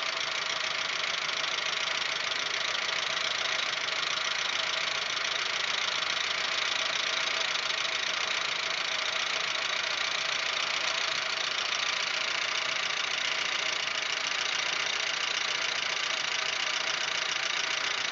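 Audi 1.8-litre 90 hp four-cylinder engine idling with a fast, steady ticking clatter from the top end, a very loud knock. The owner takes it for the hydraulic lifters: it is absent on a cold start and grows louder as the engine warms.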